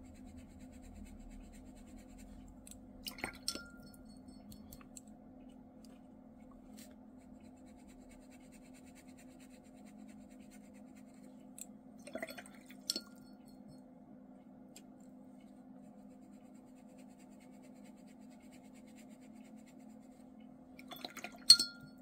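A few light clinks and taps from watercolour painting gear over a faint steady hum. The loudest clink comes near the end.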